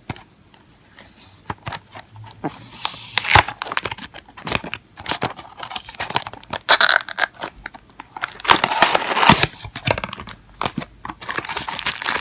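Retail packaging being torn open and handled by hand: irregular crinkling and tearing with sharp clicks and snaps, growing busier from about two and a half seconds in.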